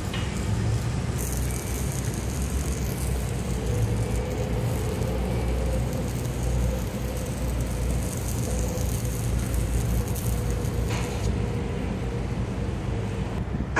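Steady low engine rumble with a faint steady hum above it; a thin high hiss comes in about a second in and drops away near the end.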